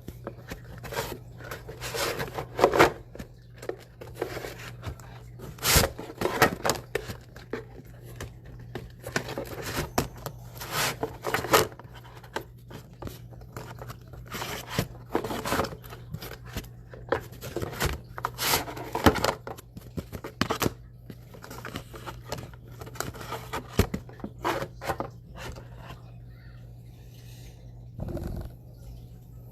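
Sports trading cards being handled and sorted by hand: irregular sliding, scraping and crinkling strokes, with a steady low hum underneath.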